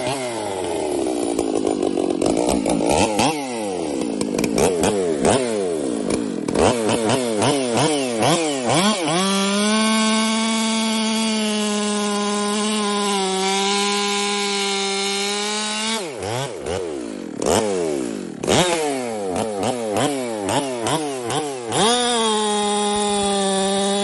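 Custom-built Stihl chainsaw engine on nitrous, with its carburettor richened, revving up and down several times. It then holds a steady high pitch for several seconds, about nine seconds in and again near the end, as in a timed cut through wood.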